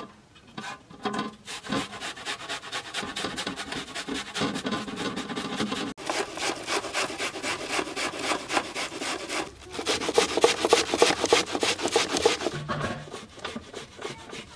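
Peeled onion being grated on a metal box grater standing in a steel bowl: quick, repeated rasping strokes, with a couple of brief pauses, loudest in the second half.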